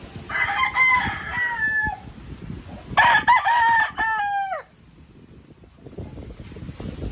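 Two gamefowl rooster crows, each about a second and a half long; the second is louder and ends with its pitch falling away.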